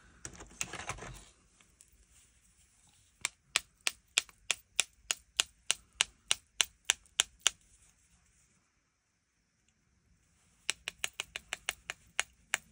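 Water brush tapped repeatedly against a plastic tool barrel, sharp even clicks about three a second, flicking watered-down white ink onto the card as snow spatter. After a pause of a few seconds, a faster run of taps follows near the end.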